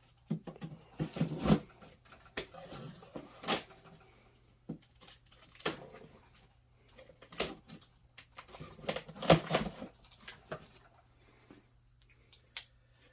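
Cardboard box being opened by hand: irregular knocks, scrapes and rustles of flaps and packing, with a few sharper clicks. The loudest come about a second and a half in, about three and a half seconds in, and about nine seconds in.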